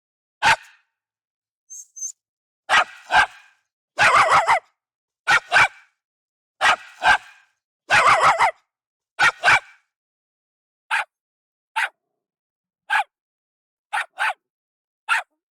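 Jack Russell Terrier barking: sharp barks in quick pairs and short clusters for the first ten seconds or so, then single barks spaced about a second apart.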